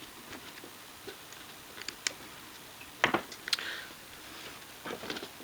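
Scattered small taps, clicks and brief rubbing as a small guitar monitor amp is handled and cleaned, with one louder knock about three seconds in.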